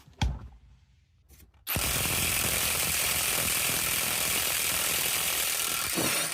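A power tool running steadily for about four and a half seconds, starting abruptly a little under two seconds in and cutting off near the end. A sharp knock comes just before it, near the start.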